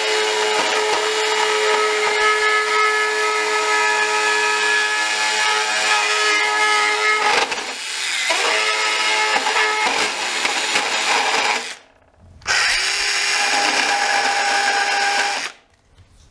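Bosch EasyCut 12 cordless mini chain saw running and cutting through plastic, its motor giving a steady whine. The pitch wavers briefly as the blade bites. The saw stops for under a second, starts again, and cuts off shortly before the end.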